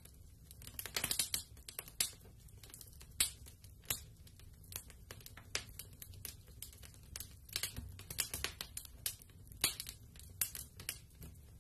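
Faint, irregular crackling clicks, a fire-crackle sound effect, with no music.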